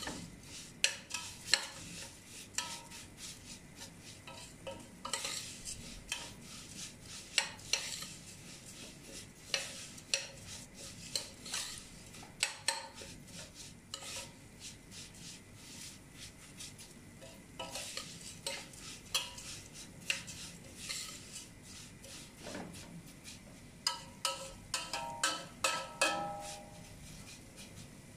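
Metal spoon stirring and scraping fine vermicelli in a stainless steel pot, with irregular clinks and scrapes of the spoon against the pot, as the vermicelli browns in vegetable oil.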